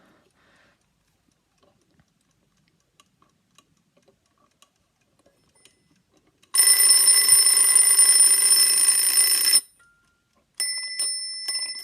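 Mechanical alarm clock: a few faint ticks, then its bell alarm rings loudly for about three seconds and stops. After a second's pause it rings again briefly near the end.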